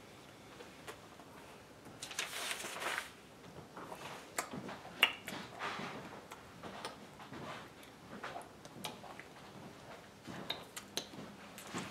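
Light rustling and scattered soft taps from hands and sleeves moving, with a longer rustle about two seconds in and a sharper tap about five seconds in.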